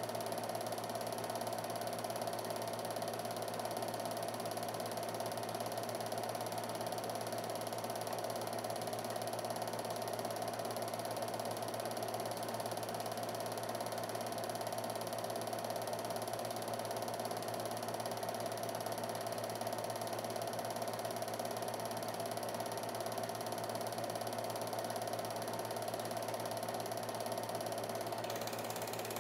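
Film projector running steadily, its motor and film-advance mechanism giving an even mechanical whir that does not change.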